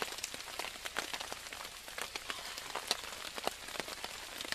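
Rain falling on a tarp overhead: a steady hiss with many irregular, sharp drop hits.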